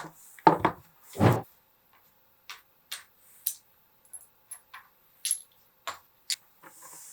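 Scattered clicks and light knocks of parts and tools being handled during assembly, with a dull thud about a second in.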